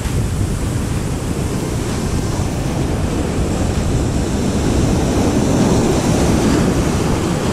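Sea surf breaking and washing over rocks, a steady rush of foaming water that swells a little about five seconds in.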